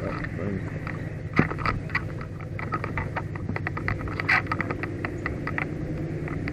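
Fire truck rolling along the road: a steady low engine and road rumble, with a scattering of sharp, irregular clicks and rattles through the middle.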